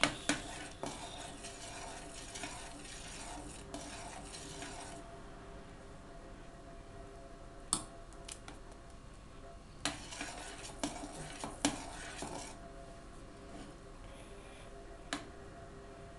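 Metal ladle stirring berry kissel in a stainless steel pot, scraping and swishing against the pot in two spells, with several single clinks of the ladle against the pot's side.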